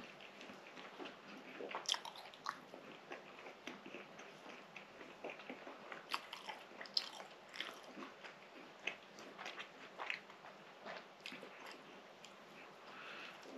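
Close-miked chewing of a mouthful of soft baked fatayer pastry, with irregular wet mouth clicks and smacks; the loudest come about two seconds in and again about seven seconds in.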